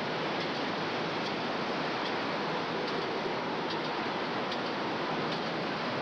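Steady city street noise of traffic, an even hiss-like din with a few faint scattered clicks.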